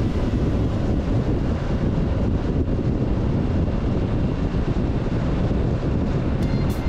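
Wind buffeting the microphone of a moving motorcycle, with the engine and road rumble under it. A run of sharp high ticks starts near the end.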